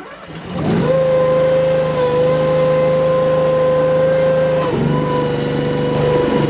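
Derette DRT480 mini skid steer's Honda GX690 V-twin engine throttling up to high speed with a high, steady hydraulic whine. The pitch sags briefly twice, about three-quarters of the way in and again near the end, as the machine takes load.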